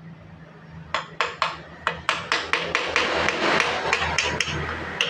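Quick series of hammer taps, about four or five a second, starting about a second in, over a steady low hum. The tapping is hammer work on a water pump during a seal replacement.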